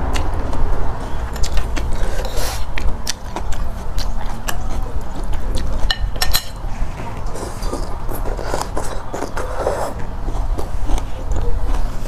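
Close-miked eating of noodle soup: chewing and slurping, with scattered sharp clicks of chopsticks and a metal spoon against the ceramic bowl.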